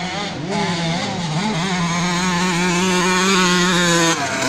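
85cc two-stroke motocross bike engine revving, its pitch rising and falling for the first second or so, then held at steady high revs before the throttle is suddenly shut off near the end.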